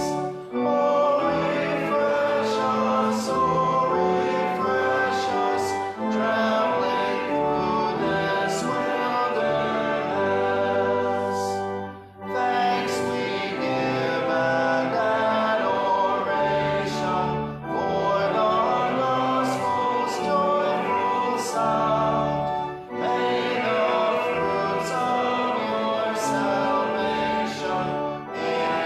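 A congregation singing a hymn with instrumental accompaniment, in phrases of about five to six seconds with short breaks between the lines.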